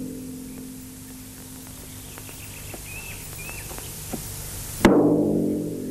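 Film soundtrack: a struck musical chord rings down, faint bird chirps come in the middle, and a second sudden chord is struck about five seconds in and rings down.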